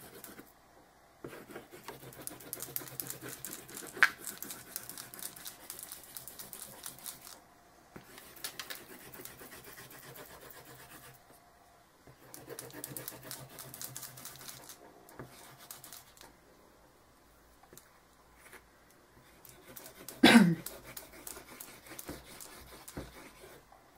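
Hand rubbing and scratching colour into the surface of a chipboard board, in stretches of a few seconds, with a sharp click about four seconds in. Near the end a short, loud squeak falls in pitch.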